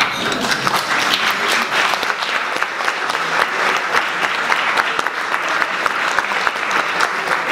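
Audience applauding: many hands clapping, starting suddenly and keeping up steadily for several seconds.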